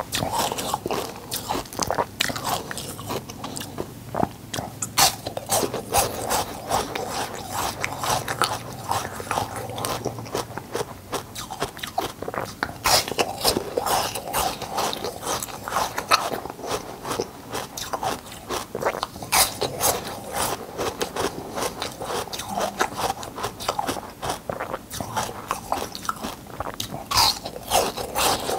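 Ice being bitten and crunched between the teeth close to the microphone, with chewing: a steady run of sharp, irregular cracks and crunches.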